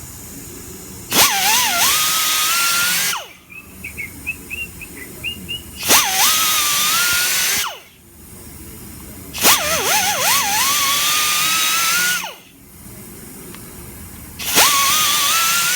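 Power drill driving a thread-repair tool along the damaged threads of a hydraulic cylinder rod. It runs four times, about two seconds each, with a motor whine that dips under load and then climbs in pitch. A few light clicks come between the first two runs.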